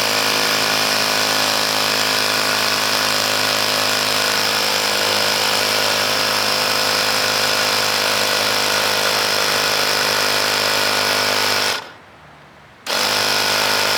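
Small electric air compressor running steadily as it inflates an e-bike tyre, a dense motor buzz; it stops for about a second near the end, then starts again.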